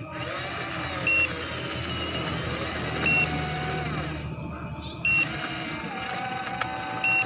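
A short, high electronic beep repeating about every two seconds, three times, over a steady low hum with wavering tones underneath.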